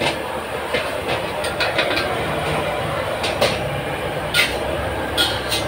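A metal spatula scraping and clanking against a wok in irregular strokes, about seven in all, over a steady rushing roar from the wok's gas burner and the food frying.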